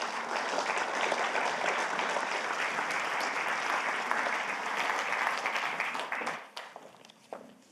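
Audience applauding, with the clapping dying away in the last couple of seconds.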